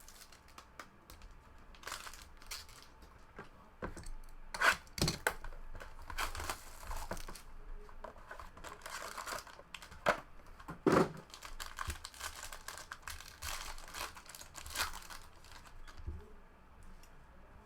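Plastic wrapping and packaging of a sealed trading-card box being torn open and crinkled: irregular rustling with sharp snaps, the loudest about five and eleven seconds in.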